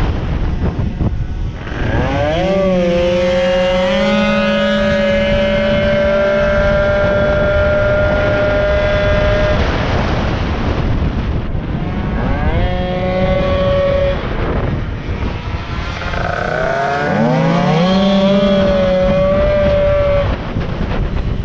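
Racing moped's small two-stroke engine under full throttle, heard from on board: the revs climb quickly, then hold at a steady high pitch for several seconds before dropping off when the throttle is closed. This happens three times, the first hold the longest. Wind noise rushes over the microphone throughout.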